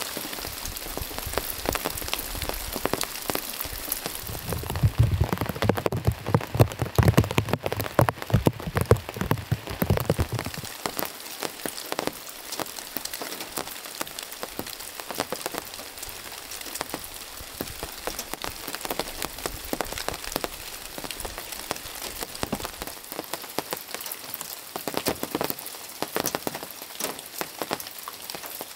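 Heavy rain falling, a dense patter of drops on a tarp overhead and on dry fallen leaves. About five seconds in, a louder spell with low thuds sets in and eases off after about ten seconds.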